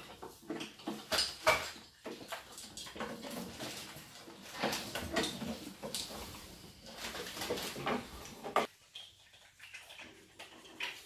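Macaw playing in hanging wooden-block and rope toys: irregular knocking, clacking and rustling of wood against wood and beak, falling quieter near the end.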